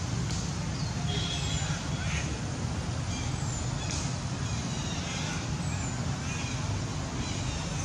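Outdoor background: a steady low rumble, like distant engines, with short high falling bird chirps scattered through it.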